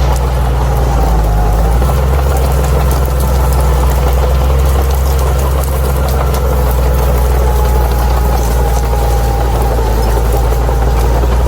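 Bulldozer's diesel engine running steadily, a deep drone with a faint whine above it and scattered light clicks.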